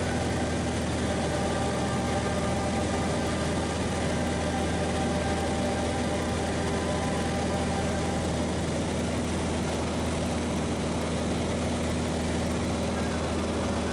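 Single-engine light aircraft's engine and propeller running at a steady cruise drone, heard from inside the cockpit.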